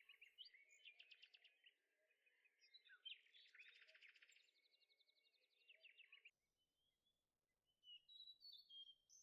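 Very faint bird chirps and quick trills, thickest in the first six seconds, with a few scattered higher chirps near the end.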